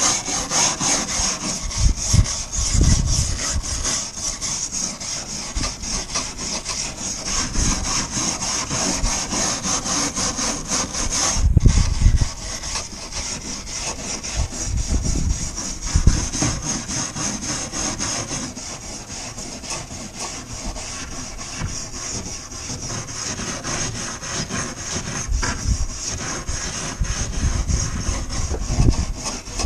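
A stiff hand brush scrubbing rapidly back and forth along a painted wooden window frame, with a few heavier bumps of the tool against the frame.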